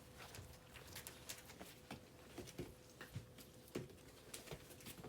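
Three-week-old puppies scrambling about, their paws and claws making faint, irregular light taps and scratches.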